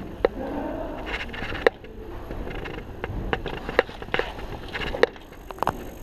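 A run of about seven sharp clicks and knocks at irregular intervals, over a steady rustling.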